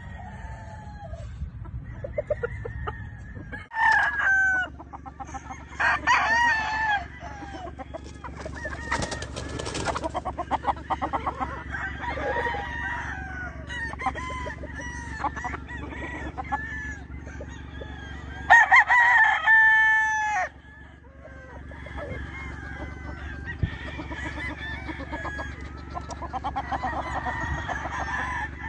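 Gamefowl roosters of McLean Hatch and Butcher Kelso lines crowing and clucking, several birds calling over one another, with one loud crow of about two seconds about two-thirds of the way through.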